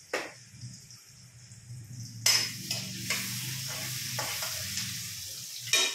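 Paneer frying in hot oil in a steel kadhai, sizzling steadily from about two seconds in, while a metal spatula stirs and knocks against the pan a few times.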